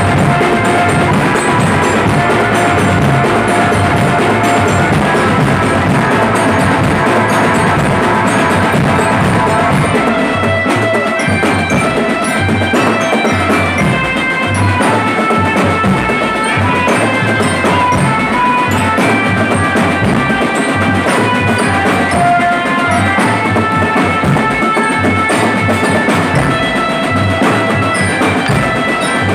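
Drum band playing: marching bass drums, snares and cymbals beat out a driving rhythm, with a melody of short, high pitched notes on top that grows busier about ten seconds in.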